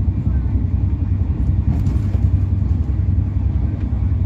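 Steady, loud low rumble of a train.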